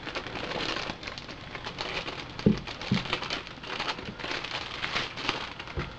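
A clear plastic bag crinkling and rustling continuously as a camcorder is worked out of it by hand, with two soft thumps about two and a half and three seconds in.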